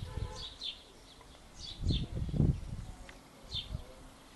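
Small birds chirping in short, repeated high chirps. About two seconds in, a louder low rumble and thumping rises and fades.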